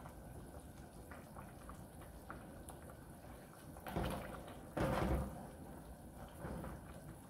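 Wooden spoon stirring littleneck clams in tomato sauce in a sauté pan: a wet scrape about four seconds in and a louder scrape and knock about a second later, with softer stirring after; faint before that.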